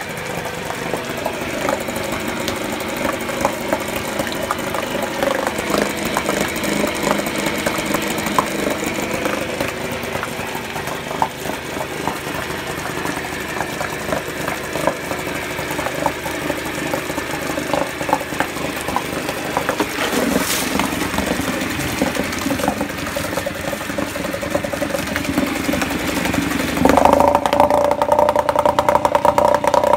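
Mariner 4 hp two-stroke outboard motor, with a freshly cleaned carburettor, running at a steady low speed with its leg in a bucket of water. A single sharp click sounds a little past 20 seconds in, and about 27 seconds in the engine speeds up and runs louder and higher.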